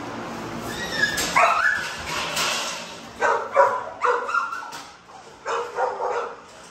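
A dog whines about a second in, then gives a run of short, high barks and yips.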